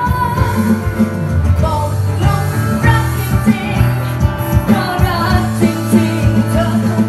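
A woman singing live into a microphone over a strummed acoustic guitar, amplified through PA speakers.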